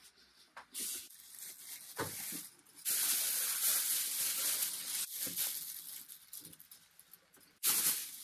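Thin clear plastic sheeting crinkling and rustling as it is handled and pulled taut. It is loudest for a couple of seconds about three seconds in, then fades, with a short sharp rustle near the end.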